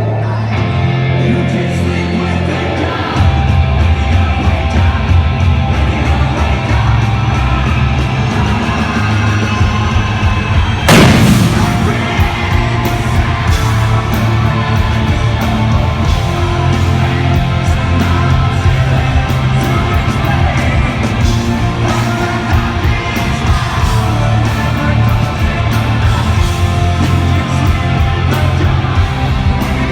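Loud live hard rock: the band playing with heavy drums, guitars and vocals. The low end fills out about three seconds in, and a loud crash comes about eleven seconds in.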